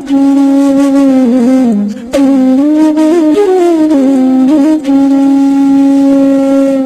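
Solo flute music: a slow melody of long held notes with small bends and slides between them, breaking off briefly about two seconds in.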